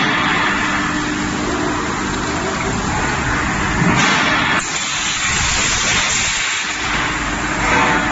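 Black steel pipe making machine (a roll-forming tube mill) running, giving a loud, steady, dense noise with a faint even hum underneath.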